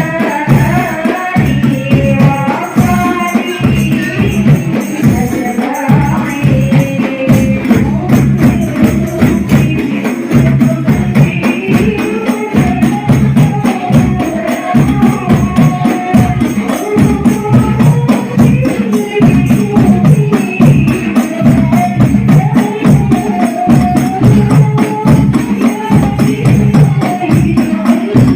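Hadroh ensemble playing, amplified for a sound check: frame drums beat a fast, steady rhythm with jingling tambourine-like strokes under sung Islamic devotional melody.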